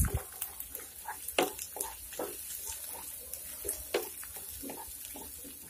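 Grated onion sizzling in mustard oil while a spatula stirs it, scraping and tapping against the frying pan in short irregular strokes, with a knock at the start.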